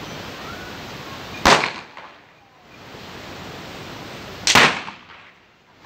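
Two firecrackers going off with loud bangs, one about a second and a half in and the second about three seconds later.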